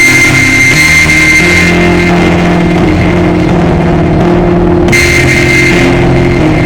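Loud rock music with electric guitar, dense and held at a steady level, with sustained notes changing every couple of seconds.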